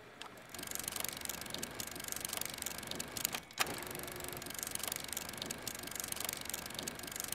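A steady, fast mechanical clicking rattle, starting about half a second in, with one sharper click about three and a half seconds in.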